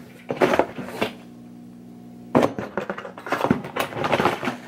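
Handling noise from lure packages being picked through: two short clattering bursts in the first second, then a busier run of plastic clicks and crinkles from about halfway on. A steady low electrical hum runs underneath.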